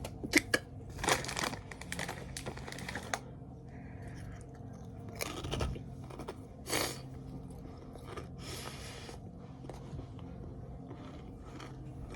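Small items being handled and rummaged through: a pair of sharp clicks at the start, then short bursts of rustling and crinkling over several seconds.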